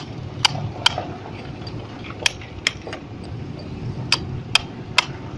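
Hand hammer striking a chisel driven into compacted crushed-stone base: eight sharp strikes in groups of two or three, about half a second apart within a group, with short pauses between groups. This is the test hole being chiselled out for a sand-cone field density test.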